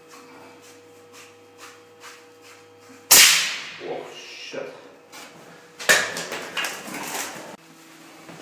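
A cap or plug being worked off a water-supply pipe stub in a tiled wall. Faint handling clicks are followed by two loud, sudden rushes of hiss, about three and six seconds in, each dying away over a second or so.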